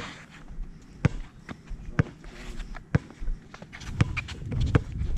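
A basketball dribbled on a hard court, one bounce about every second, with quicker scattered knocks and shuffling joining in near the end.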